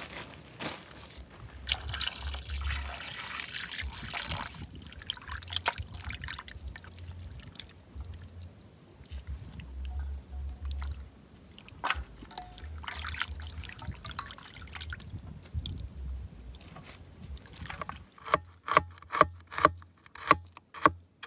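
Rustling and handling noises over a patchy low rumble. Near the end comes a quick run of sharp knocks, about three to four a second: a kitchen knife slicing a red onion on a plastic cutting board.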